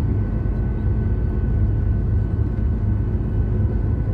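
Steady low rumble of a Boeing 737 airliner taxiing on the ground, heard inside the cabin, with a faint steady engine whine over it.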